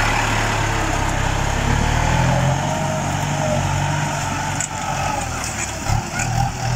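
Farm tractor engine running steadily under load while pulling a disc harrow through the soil, its pitch shifting slightly as it works.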